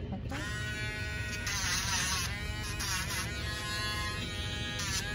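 Dremel rotary tool buzzing as it grinds a dog's nails. It starts about a third of a second in, and its whine wavers and dips in pitch several times as it is pressed against the nail.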